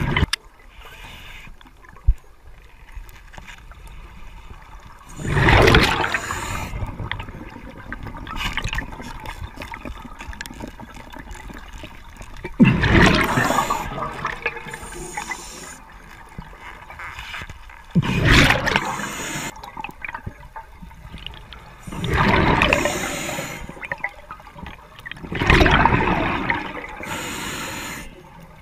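Underwater, a diver's exhaled air bubbling out of the regulator in five gushing rushes a few seconds apart, between quieter breaths.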